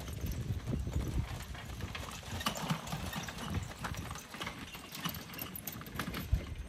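Hoofbeats of a pony on a gravel arena surface as it pulls a two-wheeled cart, a quick series of hoof strikes.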